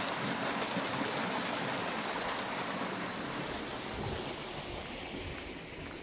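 A small forest creek running, a steady rush of water that slowly fades.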